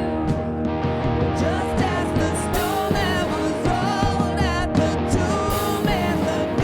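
Live worship band playing a rock-style song, with guitar, bass and drums keeping a steady beat and a wavering melody line on top.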